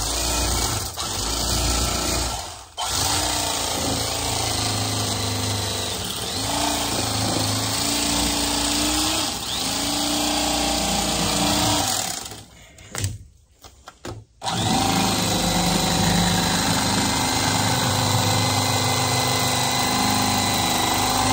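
Corded electric fillet knife running as its reciprocating blades saw through a bowfin, the motor's pitch sagging and recovering as it meets the flesh and bones. It cuts out briefly near the start and for about two seconds past the middle, with a couple of short blips, then runs steadily again.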